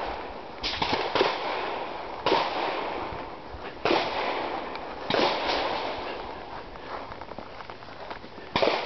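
Gunfire from other shooters on the range: about six sharp single reports at irregular intervals, each trailing off in a short echo, over a steady background hiss.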